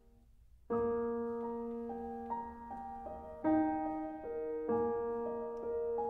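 Instrumental background music: after a moment of near silence, a slow melody of held notes starts about a second in.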